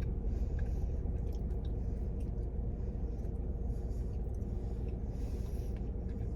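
A person chewing a mouthful of burger: small, scattered wet chewing clicks over a steady low hum.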